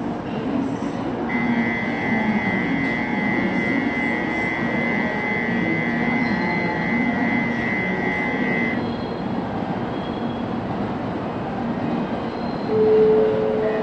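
Steady hum of a Tokaido Shinkansen train standing at the platform. Over it, a high electronic departure bell rings continuously for about seven seconds and stops abruptly. Near the end a louder two-note chime sounds.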